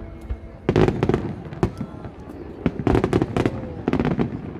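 Aerial fireworks bursting in rapid clusters of sharp bangs and crackles, with a dense volley about a second in and another near the three-second mark.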